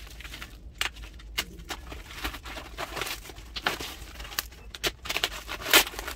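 Plastic courier wrapping being torn open and crinkled as a cardboard box is pulled out of it: irregular crackles and rustles, the loudest crackle near the end.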